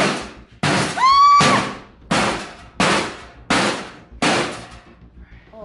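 Hammer blows on a chisel or pry bar set against a small steel safe, prying at its door: six sharp metallic strikes about two-thirds of a second apart, each ringing briefly. The blow about a second in is the loudest.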